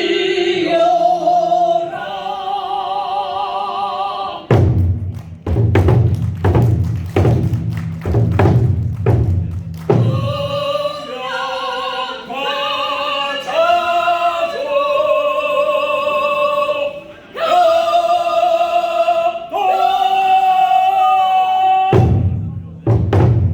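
A Korean traditional sori voice singing long held notes with wide vibrato, with one note sliding down near the end. Big barrel drums (buk) beat rapidly under it for a stretch from about four seconds in, then stop, and come back in just before the end.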